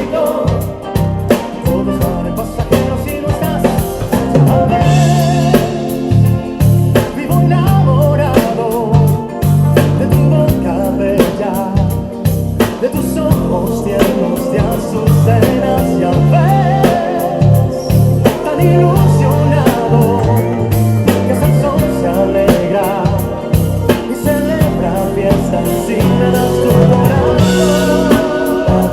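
Ken Smith CR5 five-string bass guitar playing a moving line of low notes along with a backing track of drums, guitar and singing.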